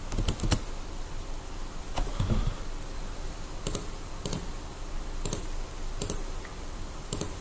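Slow typing: about eight separate, sharp key clicks spaced half a second to a second apart as a short command is entered, with a soft low thump about two seconds in.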